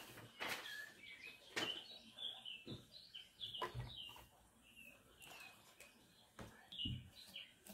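Small birds chirping repeatedly in the background, short high calls, over a few soft knocks and thumps from objects being handled.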